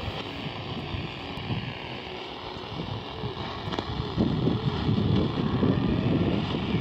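Shortwave static from the speaker of a Sihuadon R-108 portable radio tuned in the shortwave band: a hissing, crackling noise with no clear program audio, growing louder from about four seconds in.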